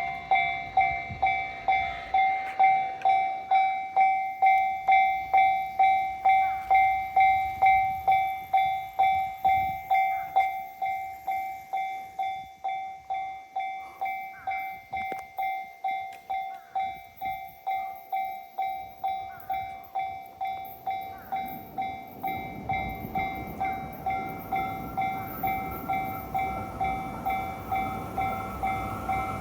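Level-crossing warning bell ringing in an even, repeated clang of about one and a half to two strikes a second, somewhat quieter after about ten seconds. About twenty-two seconds in, the rumble of a Yamanote Line train passing over the crossing rises beneath it.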